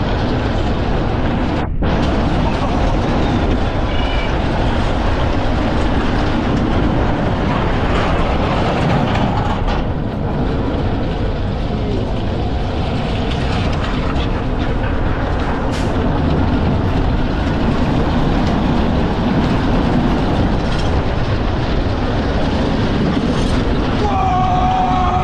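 Bobsled roller coaster train running at speed through its steel half-pipe trough: a loud, steady rumble and rush of the wheels rolling on the trough, with wind on the ride-mounted camera.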